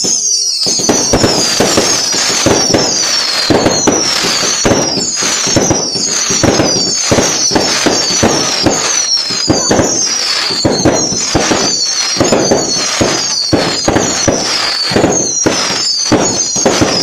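A close-range fireworks barrage: a rapid, unbroken string of bangs and crackling bursts. High whistles fall in pitch over it, repeating about twice a second.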